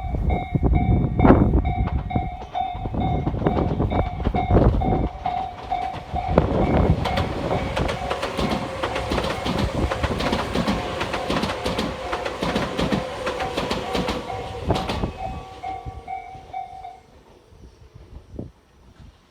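An electric train passing through the station, its wheels clattering over the rail joints, under heavy wind buffeting on the microphone. Through it a level-crossing bell dings in an even repeating pattern and stops near the end, as the train sound fades.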